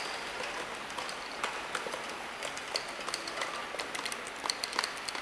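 Horizontal automatic labeling machine running steadily, with labeled tubes clattering in irregular clicks as they come off the roller conveyor and slide down a metal chute into a cardboard box; the clicks grow thicker and loudest near the end.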